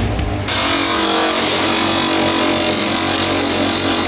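Cloth buffing wheel spinning at speed with a steel hammer head pressed against it, a loud, steady hiss-whir of metal being polished. The high hiss drops out for about half a second near the start, then carries on.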